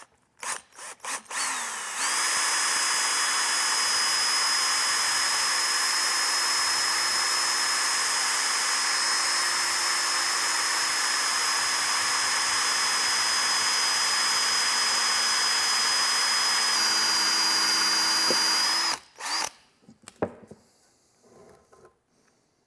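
Handheld cordless drill boring a pilot hole into a broken-off steel bolt, to take a screw extractor (easy out). A few short trigger blips, then a steady run of about seventeen seconds whose pitch shifts slightly near the end before it stops.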